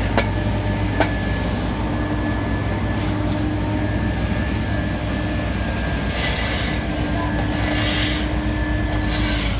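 Heavy engine running steadily with a low rumble and a constant hum. Two sharp clicks come in the first second, and hissing bursts follow around six and eight seconds in.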